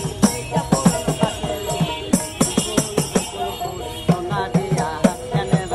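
A plucked string instrument playing a lively folk tune, with hand claps keeping a quick beat of about three or four claps a second.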